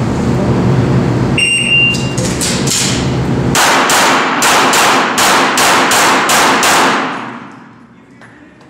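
A shot timer gives one steady beep about a second and a half in. Then comes a rapid string of 9mm pistol shots from a CZ75 SP-01 Shadow, about three a second at their fastest and ringing in the enclosed range, ending about seven seconds in. A steady low hum runs under the start and stops when the loud shots begin.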